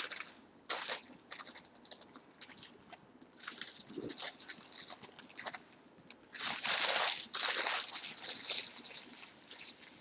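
Paper food wrapper crinkling and rustling in irregular bursts as a chili cheese dog is pulled out of its paper sleeve, loudest from about six to eight seconds in.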